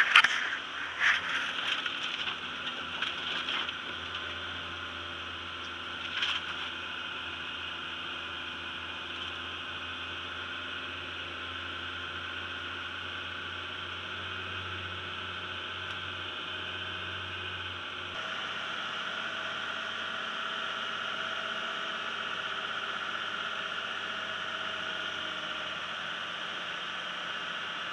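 New Holland TM130 tractor groomer's diesel engine running steadily, a drone heard from inside the cab, with a few knocks and scrapes in the first few seconds and one more about six seconds in. About 18 seconds in the engine note shifts and grows slightly louder.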